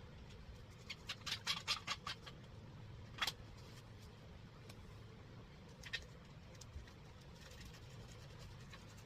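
Spline roller pressing rubber screen spline into an aluminium door-frame channel, giving short squeaks: a quick run of about eight about a second in, then single squeaks at about three and six seconds.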